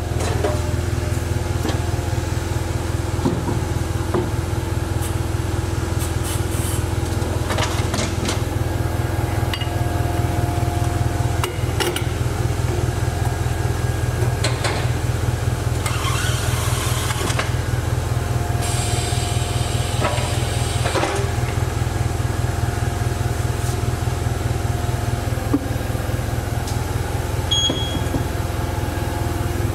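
A machine runs with a steady, low, fast-pulsing hum. Over it come scattered clicks and knocks as a wheel is fitted onto a wheel balancer's shaft, two stretches of hiss around the middle, and a short electronic beep near the end.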